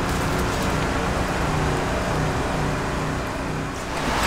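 Steady rushing background noise with a low rumble, dipping slightly near the end.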